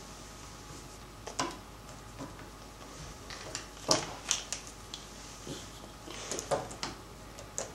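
Littlest Pet Shop plastic toy figures being handled and set down: scattered light clicks and knocks, most of them in the second half.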